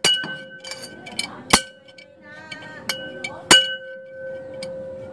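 A small ringing object struck again and again: sharp clinks every second or so, with fainter taps between, each leaving a clear tone that rings on. The sound cue used in conditioning the rodent.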